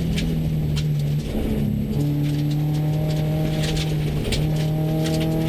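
Subaru rally car heard from inside the cabin at speed on gravel: the engine drones at a steady pitch over road and tyre noise, dropping out briefly twice as the car slows for a corner.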